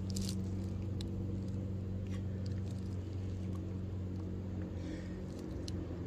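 A steady low hum with a few faint ticks and rustles over it.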